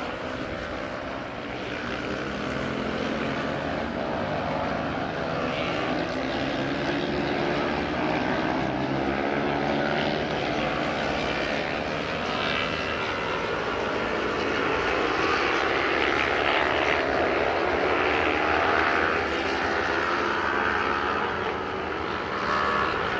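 Several road-racing motorcycle engines at high revs as the bikes race past, their overlapping engine notes rising and falling in pitch through the gear changes.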